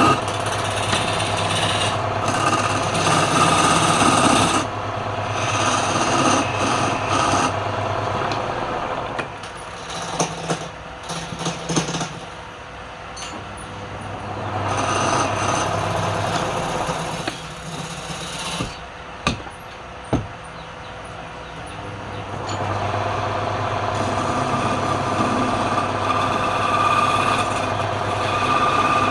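Wood lathe running, with a turning tool cutting into the spinning wood in louder, rougher stretches. In the quieter middle stretch there are a few sharp clicks and knocks.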